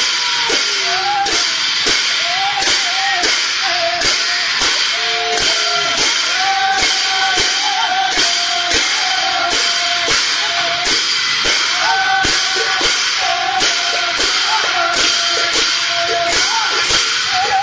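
Music with a steady, fast drum-and-cymbal beat, about two to three strokes a second, under a wavering high melody line.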